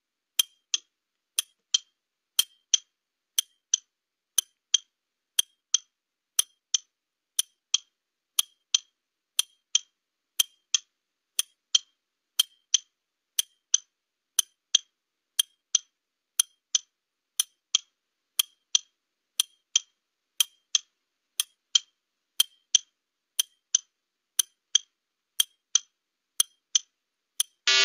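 Countdown clock ticking steadily, about two sharp ticks a second, timing a 30-second answer period.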